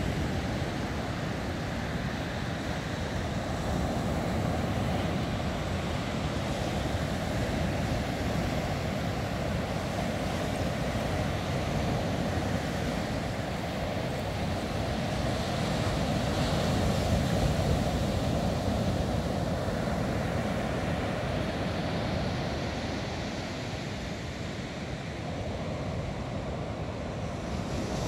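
Ocean surf breaking on a beach: a steady rush that swells a little and eases again as the waves come in.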